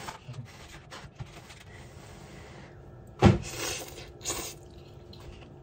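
Blowing softly on a forkful of hot instant ramen noodles, then slurping them in with a few short noisy pulls, the first one sharp and the loudest.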